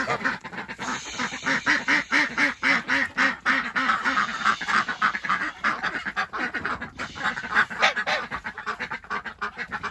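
Domestic ducks quacking in a quick, steady run of calls, about three a second, turning more broken about halfway through.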